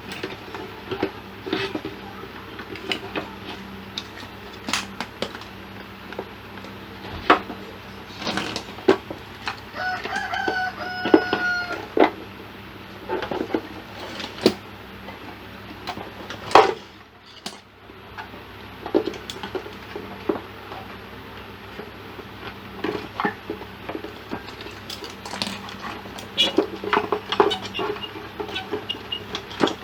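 Scattered small clicks and knocks of tools and parts being handled. A rooster crows once in the background, about ten seconds in.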